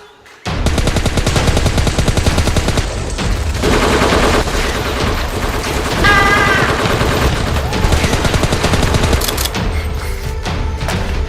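Rapid bursts of automatic gunfire sound effects over background music, starting abruptly about half a second in, with a short wavering tone about six seconds in.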